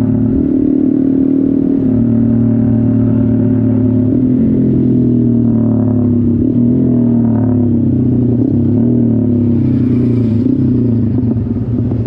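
Honda MSX 125's single-cylinder four-stroke engine running under way at fairly steady revs, its pitch dipping slightly and wavering with small throttle changes.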